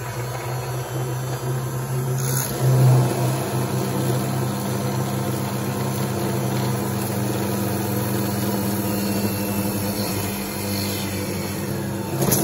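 Small benchtop drill press motor running steadily as a 3 mm bit is slowly fed down through an aluminium model-truck chassis rail, cutting its way through the metal.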